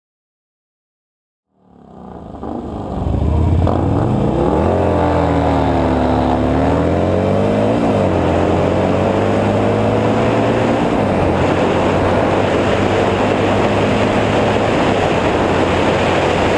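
Motorcycle engine under hard acceleration, heard onboard during a drag-strip run. It fades in after a second or two of silence, its pitch climbing and dropping back at gear changes, then rushing wind on the microphone takes over as speed builds.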